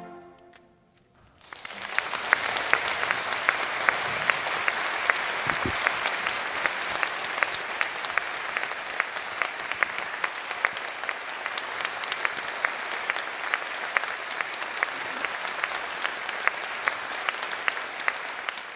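The band's final chord dies away in the hall's echo, and after a second of hush the audience breaks into sustained applause with many sharp individual claps.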